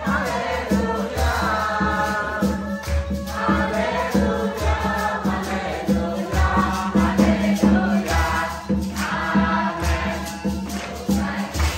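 Mixed group of men and women singing a worship song together, over a steady hand-drum beat and jingling tambourine.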